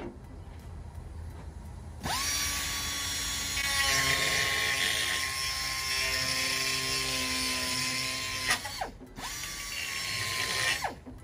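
Quarter-inch straight pneumatic die grinder spinning up about two seconds in with a high steady whine, its burr grinding away metal to widen a hole in a sheet-metal panel. It stops near the end, runs again for about two seconds, then stops.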